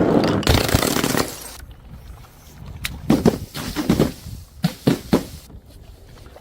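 Glass breaking with a loud crash in the first second or so, then a quieter stretch and a run of about eight sharp cracks and pops over the next two seconds.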